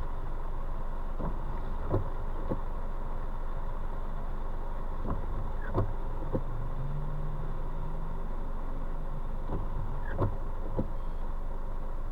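Steady rain and road noise inside a moving car, with a low engine hum. Short sharp clicks come in runs of three, about every four seconds.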